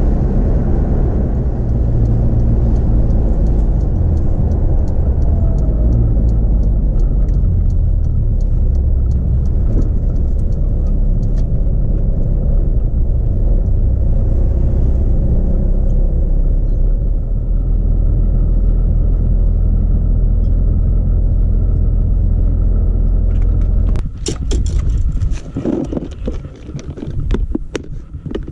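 Car driving, heard from inside the cabin: a steady low rumble of engine and road noise. Near the end it cuts off and gives way to scattered clicks and rattles.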